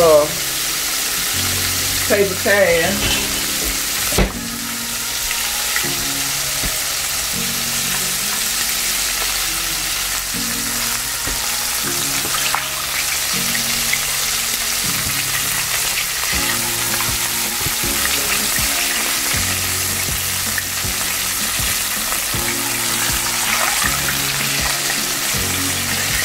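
Battered oyster mushrooms deep-frying in hot oil in a cast iron pot: a steady sizzle, with low sustained notes of background music underneath.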